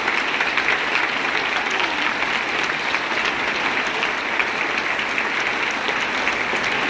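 Audience applauding steadily, a dense, continuous clapping with no break.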